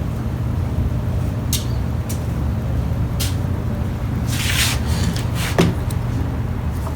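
A steady low mechanical hum runs underneath light clicks and knocks of metal parts and tools being handled. A short hiss comes about four and a half seconds in.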